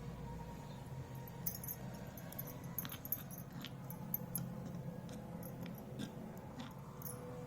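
Light, scattered clinks and taps of miniature kitchen utensils, about half a dozen over several seconds, over a steady low hum.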